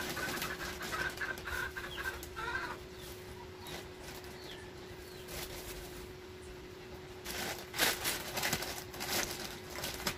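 Plastic grocery packaging rustling and crinkling with knocks of bottles and items being handled, loudest in the last few seconds, over a steady hum.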